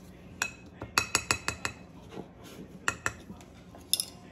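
Orange plastic measuring spoons clicking and clattering as they are handled and set down on a countertop. A quick run of about five clicks comes around one second in, two more near three seconds, and a last few near the end.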